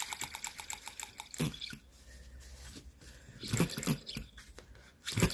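Small single-cylinder four-stroke petrol model hit-and-miss engine running with a fast, even beat that fades out and stops about a second in. A few faint knocks follow.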